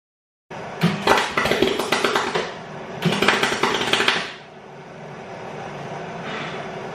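Permig 195 MIG welder arcing in two crackling, spitting bursts of about a second and a half each, then a short faint one near the end, with a steady hum underneath. It is welding a nut onto a seized strut top-mount bolt with the shielding gas not turned on.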